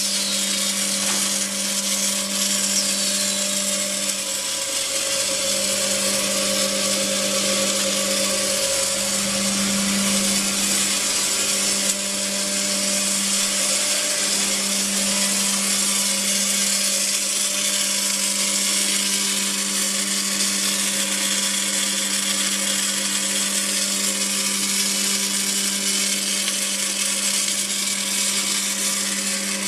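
Machinery running steadily: a constant hum with a few higher steady tones over a continuous hiss.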